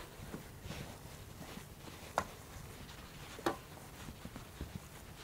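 Plastic-gloved hands squeezing and mixing a wet fish-cake mixture with noodles in a stainless steel tray: soft, quiet squishing, with three sharp clicks along the way.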